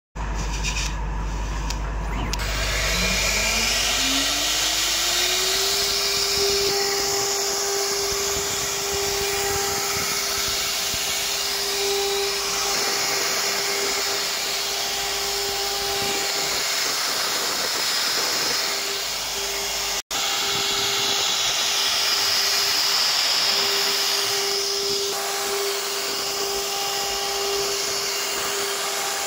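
CNC router spindle spinning up with a rising whine over the first few seconds, then running at a steady high pitch while its bit carves a leaf pattern into a board, with a steady hiss of cutting. The sound breaks off for a moment about two-thirds through.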